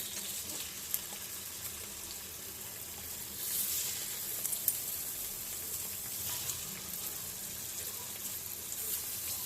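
Chicken wings frying in hot oil: a steady sizzle with scattered small pops, swelling a little about three and a half seconds in.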